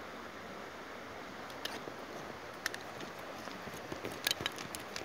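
Steady rush of flowing river water, with a scatter of small, sharp, irregular clicks starting about a second and a half in and growing more frequent near the end.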